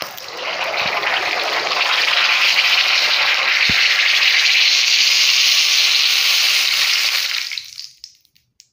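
Hot cooking oil in an aluminium kadai sizzling hard as toothpaste is squeezed into it, the water in the paste boiling off. The loud sizzle starts at once, holds steady for about seven seconds, then dies away, with one short knock near the middle.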